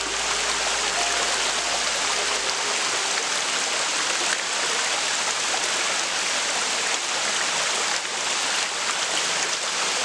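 Shallow rocky stream flowing, a steady even rush of running water.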